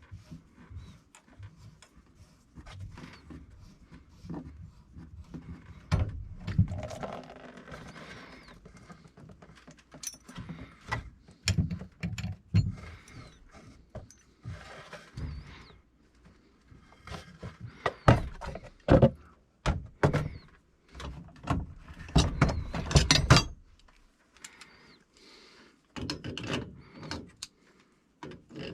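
Irregular knocks, clunks and rattles of tools and metal parts being handled, with bursts of loud clanking about six seconds in and again past the middle.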